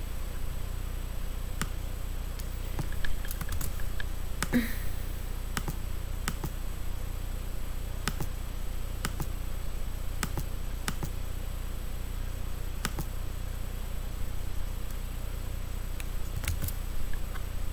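Irregular short clicks, roughly one a second, over a steady low hum.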